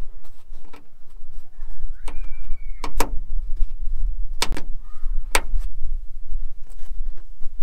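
Plastic push-in tabs of a car's trunk-lid liner being pressed into their holes in the trunk lid, giving a series of sharp snaps and clicks, the loudest about three, four and a half and five and a half seconds in, with a brief squeak between two and three seconds, over a low rumble.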